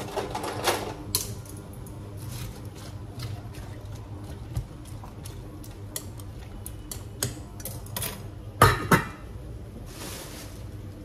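Kitchen handling sounds: plastic grocery bags rustling and crinkling, with scattered light clicks and knocks of produce and a stainless steel pot being handled. The loudest rustle and knock comes about three quarters of the way through, over a steady low hum.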